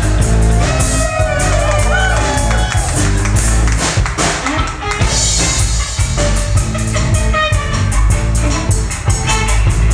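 A live band playing loud, with electric guitars over a steady drum-kit beat and a deep bass line.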